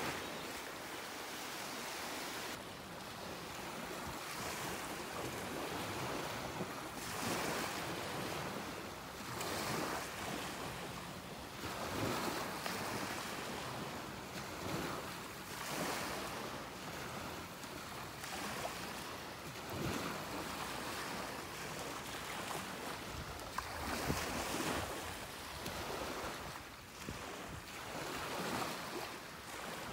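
Small waves washing up onto a sandy beach, swelling and falling back every couple of seconds, with wind on the microphone.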